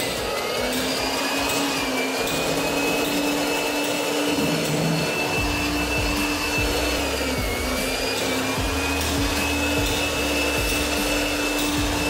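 Electric hand blower running steadily with a high whine, blowing concrete dust out of freshly drilled anchor holes to clean them before the chemical anchor goes in. Its pitch dips briefly at the start and again about two-thirds of the way through.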